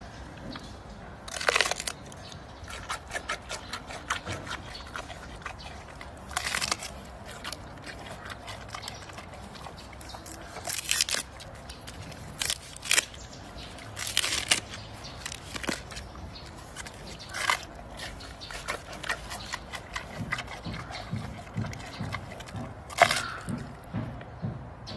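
Giant panda biting and chewing a fresh bamboo shoot: a run of irregular crisp crunches and snaps, with a handful of louder bites spread through.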